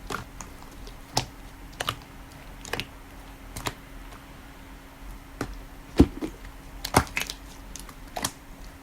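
A series of irregular sharp clicks and taps, about one or two a second, over a faint steady hum.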